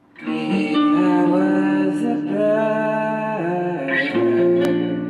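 Guitar playing slow, sustained chords that change a few times, with one sharp click about two-thirds of the way through.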